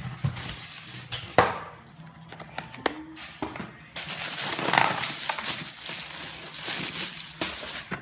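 Hands opening and handling a seafood delivery box and its contents: scattered knocks and clicks, one sharp knock at about a second and a half, and short squeaks. About halfway through a dense crinkling of plastic bags and plastic containers begins.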